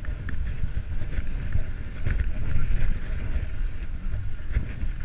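Wind buffeting the microphone of a camera carried on a moving bicycle: a steady, uneven low rumble.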